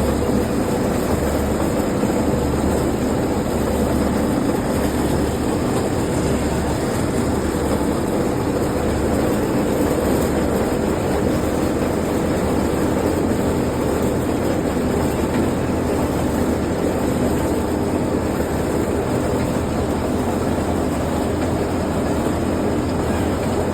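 Road roller's diesel engine running steadily.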